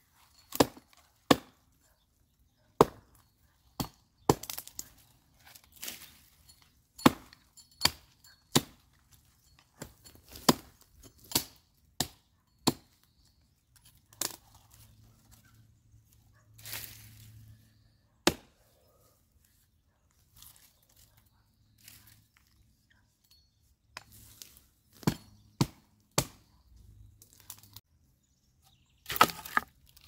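Dry wood cracking and knocking in a long series of sharp, irregular strikes, some in quick pairs, with a stretch of softer rustling about halfway through.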